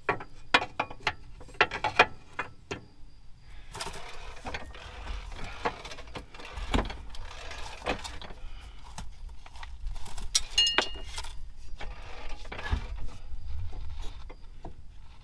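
Irregular metal clinks, taps and scrapes of bolts and hardware being worked back into place while a car's rear differential is refitted, with a few dull knocks and a short metallic ring about ten seconds in.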